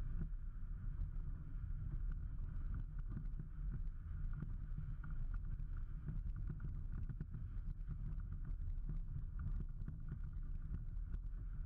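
A vehicle driving slowly over a rocky dirt trail: a steady low rumble with many small knocks and rattles from the rough ground.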